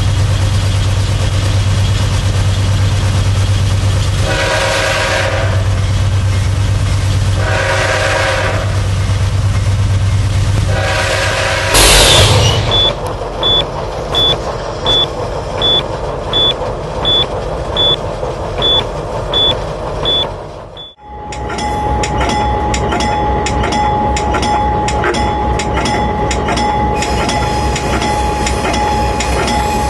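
Diesel locomotive's horn sounding three long blasts over the low drone of its engine. On the third blast the locomotive strikes a vehicle at a crossing with a loud crash. A cab alarm then beeps about once every 0.7 s. After a break near the end, the train runs on with a steady single high tone over its running noise.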